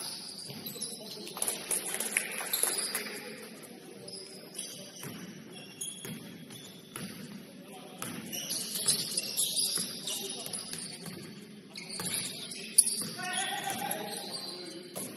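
Basketball game play on a gym court: sneakers squeaking, a ball bouncing, and scattered players' voices. A single sharp knock stands out about 13 seconds in.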